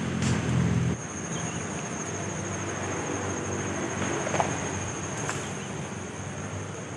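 Insects trilling in a steady high-pitched drone. A low hum is heard in the first second and cuts off suddenly.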